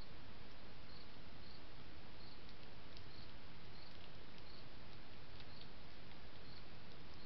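Steady hiss from a trail camera's microphone, with a cricket giving short high chirps about every two-thirds of a second and a few faint ticks.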